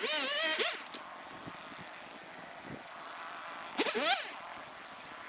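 Chainsaw revving in short throttle bursts: a rev dies away just after the start and another quick rising rev comes about four seconds in, with a steady hiss between them.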